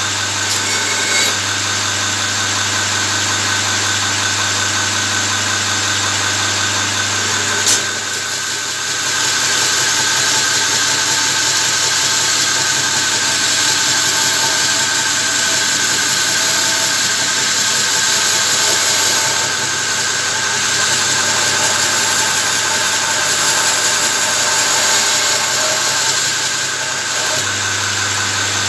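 Electric belt grinder running with its abrasive belt grinding a forged steel spear, a steady hum with a dense grinding hiss. A sharp click comes about eight seconds in; from then until near the end the low hum drops back as the steel is held against the belt.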